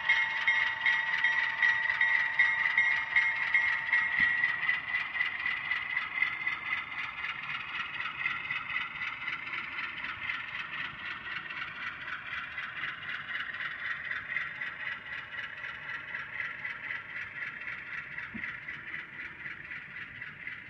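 HO-scale model freight train of covered hoppers rolling along the track, its wheels making a fine, rapid metallic rattle and clatter. A steady tone ends about four seconds in, and the whole sound gradually fades as the train moves away.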